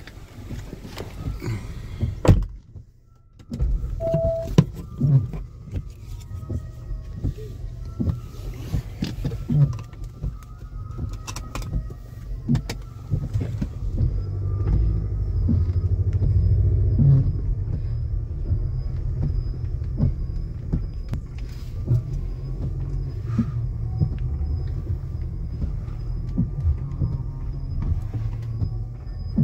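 Low, steady rumble of a car heard from inside the cabin, with scattered clicks and knocks. It sets in after a short lull about three seconds in, with a brief beep just after.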